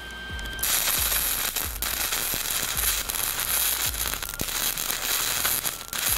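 Lincoln Electric welder's arc crackling steadily as bolts are welded in place, starting about half a second in.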